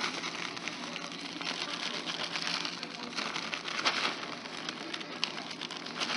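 Plastic bag of shredded cheese crinkling and rustling as it is shaken, with the shreds pattering onto the enchiladas: a steady crackly rustle made of many small ticks.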